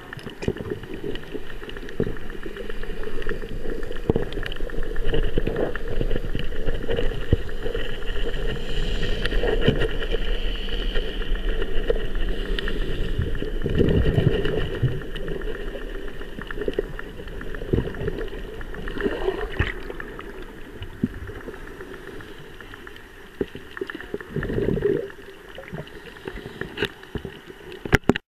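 Earthquake rumble heard underwater: a continuous deep roar of the shaking seabed and water, with rattling and knocking from vibrating rock. It is loudest in the first half, eases off after about twenty seconds, and swells briefly once near the end.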